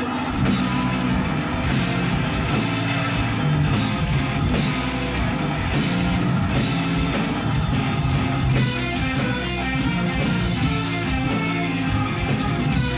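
Rock band playing live and loud: drums, electric guitars and keyboards, with a voice singing over them.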